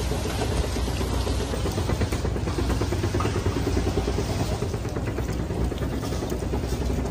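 Steady rain noise outdoors with a continuous low rumble, unbroken throughout.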